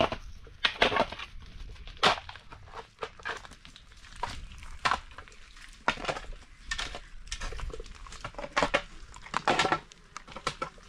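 Irregular crunching and cracking, a dozen or so sharp cracks at uneven intervals, as of something dry being crushed or snapped.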